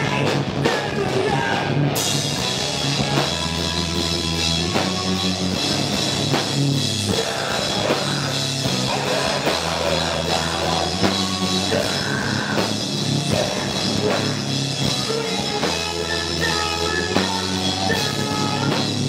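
A heavy rock band playing live: electric guitars and a drum kit, loud and continuous, with the cymbals filling out the top end from about two seconds in.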